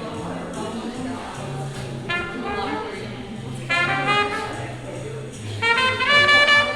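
Background jazz music: short brass-like melody phrases over a moving bass line.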